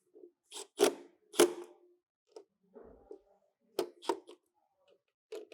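Sharp clacks and knocks of hand tools and parts being handled and set down, coming in two close pairs with quieter rubbing and fumbling between.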